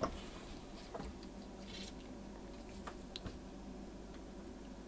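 Faint small clicks and taps of hand-soldering a transistor leg onto a circuit board, with a brief soft hiss about two seconds in, over a low steady hum.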